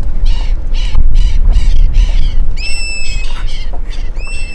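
Wind buffeting the microphone with a heavy low rumble, over repeated bird calls: a run of short harsh squawks about three a second, and twice a clear whistled note that rises sharply and then holds, a little past halfway and near the end.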